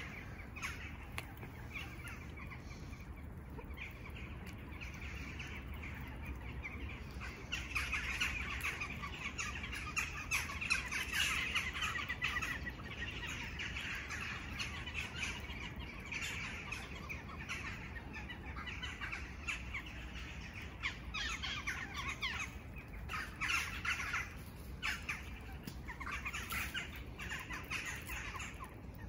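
A flock of birds chirping and calling in a dense, continuous chatter, busiest from about eight seconds in, over a low steady background hum.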